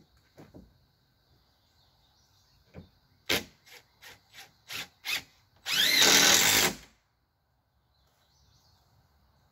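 Cordless drill driving a screw into a wall panel: a string of short trigger bursts, then about a second of steady running with a rising motor whine.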